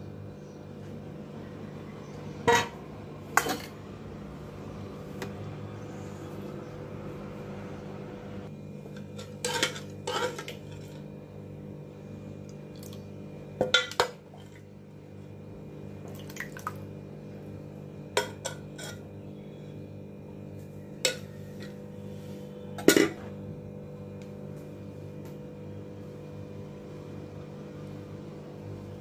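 Stainless-steel bowl and utensils clinking against a glass serving plate while rice and dal are plated. About nine sharp, short clinks come a few seconds apart over a steady low hum.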